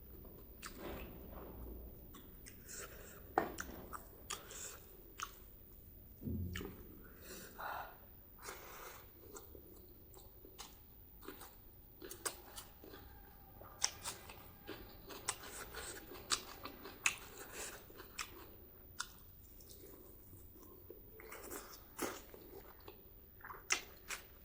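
Close-miked chewing of spicy pork and rice, with many short, irregular wet mouth clicks and smacks.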